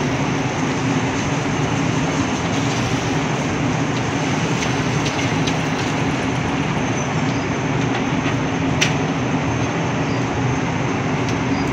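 Steady rain falling on wet pavement, with a low, steady engine drone underneath.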